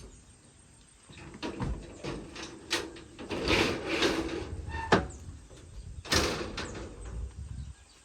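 A series of knocks and clanks, with a rattling stretch in the middle and two sharp, loud hits near the end.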